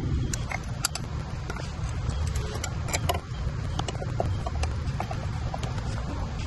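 Hands working a frame bag and battery cable on an e-bike: scattered light clicks and small knocks of straps, plastic and cable being handled. Under them runs a steady low rumble.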